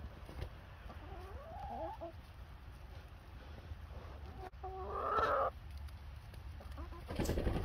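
Hens clucking: a few short, wavering calls about a second in and a louder, longer call about five seconds in, with a short rough burst near the end.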